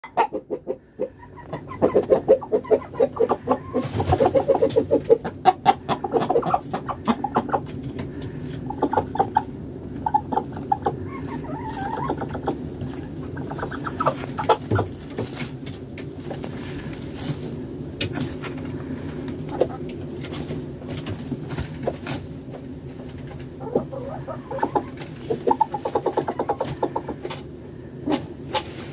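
Domestic hens clucking in quick runs of short calls, busiest in the first several seconds and again near the end, with scattered sharp clicks between.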